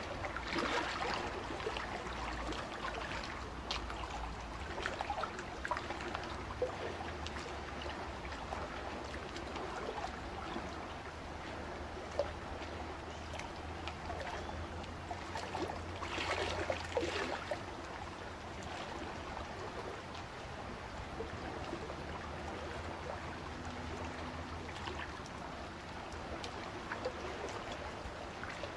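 Water trickling and burbling steadily, swelling louder briefly about a second in and again around sixteen seconds in.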